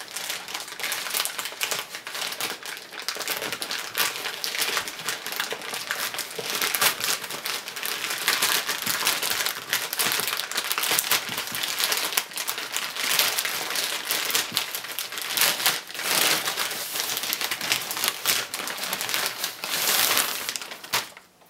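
Shipping packaging being unwrapped by hand: a continuous crinkling and rustling with dense crackles.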